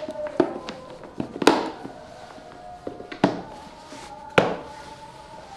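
Four sharp knocks, each trailing off briefly, among lighter taps, over quiet background music.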